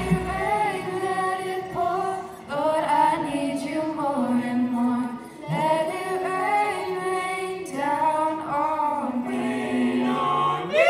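Mixed choir of teenage boys and girls singing without instrumental accompaniment, in phrases of about three seconds with brief breaks between them.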